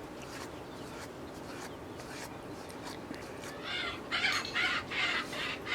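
Bird calling: about four loud, harsh calls in quick succession in the second half, over a faint steady background.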